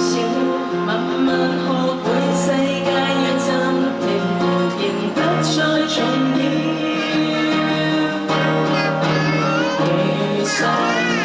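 A song: a voice singing held, gliding notes over steady instrumental backing.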